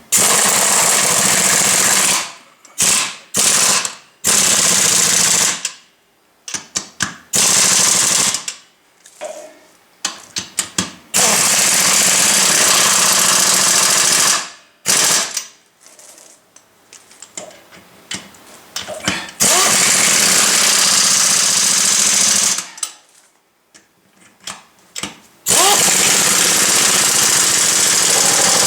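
Impact wrench running in repeated bursts of one to three seconds, with short blips between, as it spins on and hammers down the lug nuts of a tractor wheel spacer.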